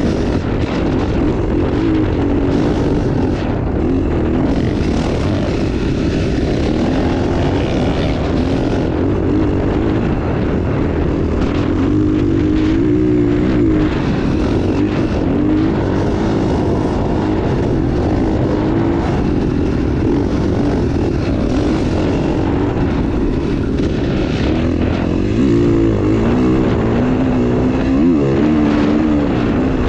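KTM 450 single-cylinder four-stroke dirt bike engine running hard, its note rising and falling as the throttle works through the dunes.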